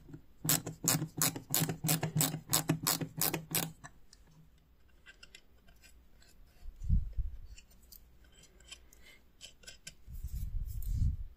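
A small screwdriver works the screws of an antique doorbell's cast-iron striker mechanism, making rapid, even clicking at about four a second that stops about three and a half seconds in. Then come quiet handling sounds, a low thump near the middle and a low rumble near the end.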